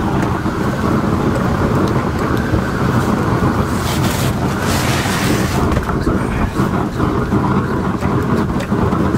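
Wind buffeting the microphone as a steady low rumble, with a brief hiss about four to five seconds in.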